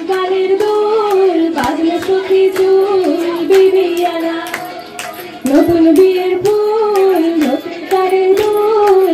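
A woman singing a slow melodic song through a microphone over a regular percussion beat; the voice drops away briefly about five seconds in and then resumes.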